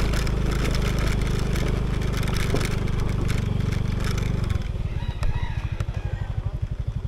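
Small motor scooter engine running steadily as the scooter rides over a gravel road, with the tyres crunching on stones. About four and a half seconds in, the engine sound changes to a slower, even, rapid putter as it slows, and a single click sounds shortly after.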